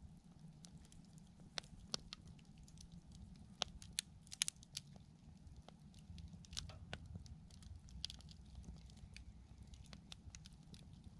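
Wood campfire crackling: sharp, irregular pops and snaps over a faint steady low rumble, with a quick cluster of louder pops about four seconds in.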